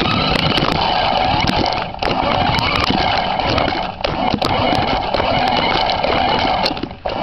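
A toy remote control car's small electric motor and gears whining as it drives, heard from a camera mounted on the car. The whine wavers in pitch with speed and cuts out briefly about two, four and seven seconds in as the throttle is let off. Sharp ticks and rattles come from the wheels and chassis over the floor.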